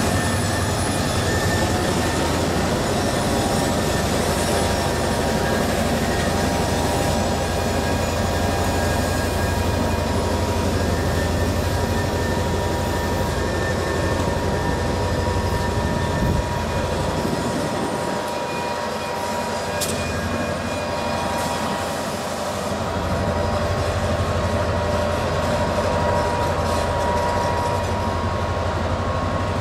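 South Shore Freight diesel-electric locomotives running at low speed, a steady engine rumble with steady high-pitched wheel squeal on the curved track. The low rumble drops away for a few seconds about two-thirds through, then returns.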